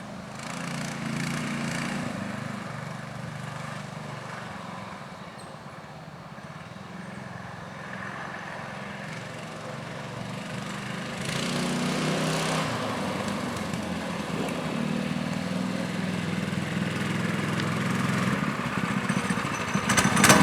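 MB200 mini bike's small engine running, its speed and loudness rising and falling, and louder from about halfway through.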